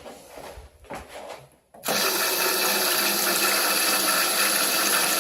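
A few faint knocks, then about two seconds in a water tap is opened and runs in a steady, full stream.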